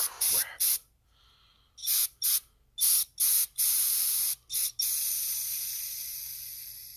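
Aerosol can of brake cleaner sprayed in a series of short hissing bursts, then one longer spray that steadily weakens and fades out as the can runs empty.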